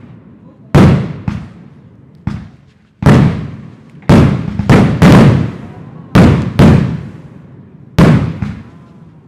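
Fireworks display: a string of sharp bangs from aerial bursts, about eleven in nine seconds at uneven spacing, some in quick pairs. Each bang has an echoing tail.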